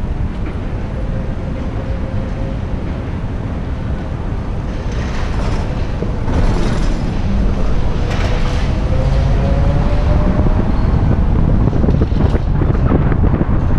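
City traffic heard from a moving vehicle: a steady low road-and-wind rumble, with several brief hissing swells and a faint whine that rises slightly in pitch midway.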